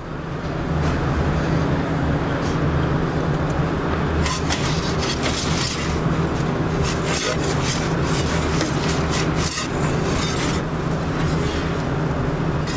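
A metal pizza peel scraping and sliding across the oven's stone hearth again and again as pizzas are turned and lifted, with the scrapes bunched in the middle. Under it runs the steady low hum and rumble of the running gas-fired stone hearth oven.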